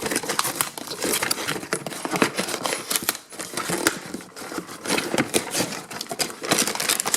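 Toy packaging being handled and opened: a dense run of crinkling, rustling and small clicks as a boxed plastic toy is taken out of its box.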